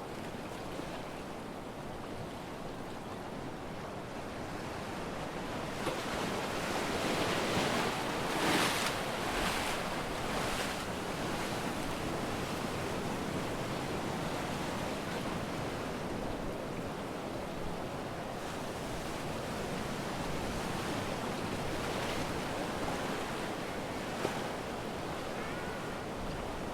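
Sea waves breaking and washing on a sandy beach, swelling louder for a few seconds about a quarter of the way in, with some wind on the microphone.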